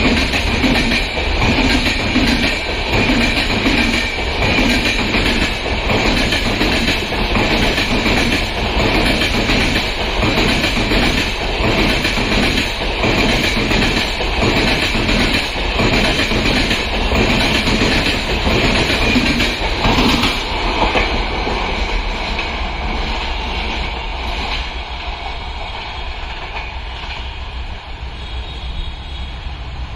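Coaches of a passenger express train rolling past, the wheels clattering rhythmically over rail joints, with the noise easing off and fading in the last third as the train draws away.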